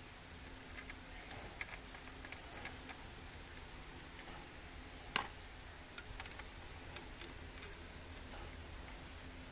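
Ratchet and socket clicking in short, irregular bursts while undoing bolts, with one sharper metallic click about five seconds in.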